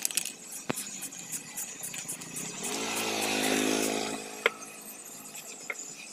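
Aerosol spray paint can hissing as paint is sprayed onto a small metal dome for about four seconds, then stopping. A low humming sound swells beneath the hiss near the end of the spray, and a few light clicks follow.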